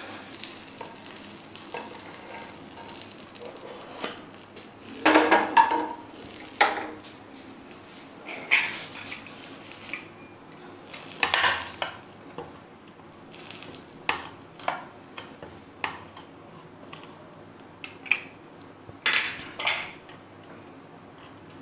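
Kitchen utensil handling: a spatula scraping a nonstick pan as the pizza is lifted out, then a pizza-cutter wheel rolling and crunching through the crisp crust on a cutting board. Irregular scrapes and knocks with quieter stretches between them.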